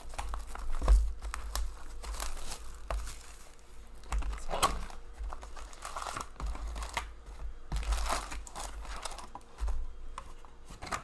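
Foil-wrapped hockey card packs crinkling and rustling as they are handled and taken out of a cardboard hobby box, with scattered light knocks of cardboard and hands.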